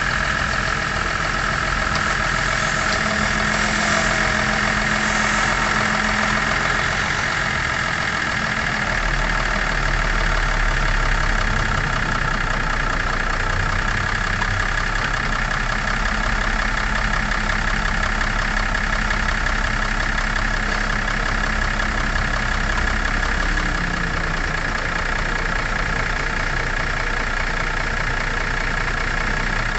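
2004 BMW X5's engine idling steadily, running so that the automatic transmission's fluid level can be checked at the fill plug.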